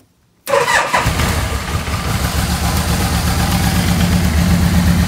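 1986 Yamaha Venture 1300's V4 engine starting: the starter cranks briefly about half a second in, the engine catches about a second in and then idles steadily, running while its four carburettors are balanced.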